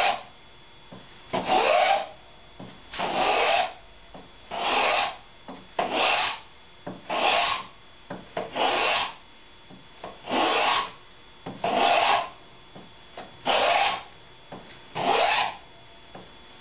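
Wooden hollow molding plane cutting along a board's edge in repeated strokes, about eleven of them roughly a second and a half apart, each lasting about half a second. The strokes are cutting a thumbnail profile, with the plane following a previously planed bevel.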